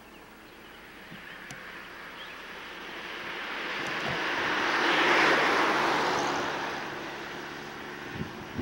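A vintage 1930s car driving past: its engine and tyre noise swell to a peak about five seconds in, then fade as it moves away.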